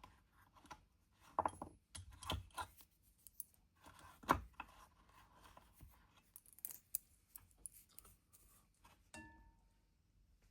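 Small metal inserts of a watchmaker's wheel stretching tool being handled: faint, scattered light clicks and taps, with one louder knock about four seconds in and a short metallic ring near the end.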